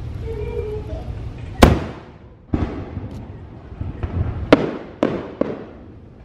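Aerial fireworks shells bursting: five sharp bangs over about four seconds, each trailing off in a rumble. The first bang, about one and a half seconds in, is the loudest.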